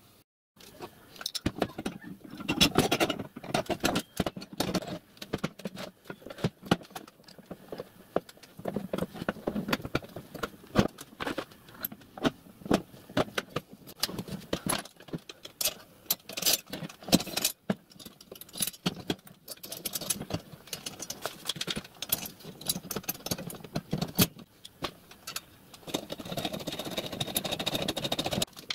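Steel parts of a miniature-railway riding car clinking and knocking by hand as wheels, axles and suspension units are fitted to the frame, with many short irregular clicks and some handling rustle.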